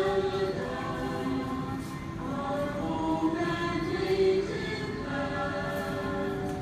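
Voices singing a slow hymn together, holding long notes, with no instruments heard.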